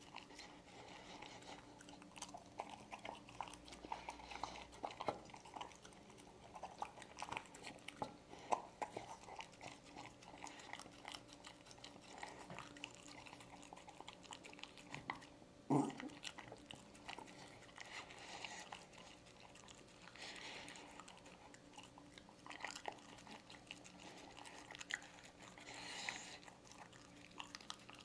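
A dog eating canned dog food from a ceramic bowl: quiet, wet licking and chewing made of many small smacks and clicks. One louder knock comes about halfway through.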